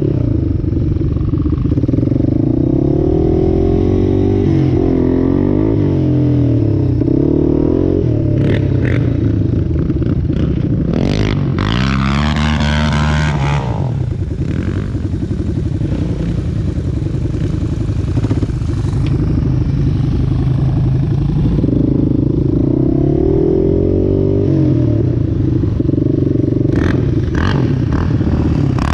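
Off-road vehicle engine running throughout, its revs rising and falling over and over. About eleven seconds in, a higher-pitched engine revs up and falls away over a few seconds. A few sharp knocks and scrapes come now and then.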